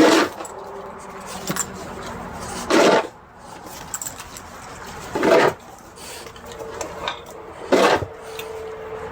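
Snow shovel scraping through snow in four strokes, about two and a half seconds apart, with a faint steady hum underneath in the second half.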